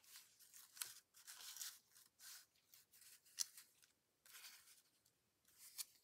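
Soft, intermittent rustling and scraping of paper: a cardstock die-cut being handled and slid across a journal page, with one sharper tick about three and a half seconds in.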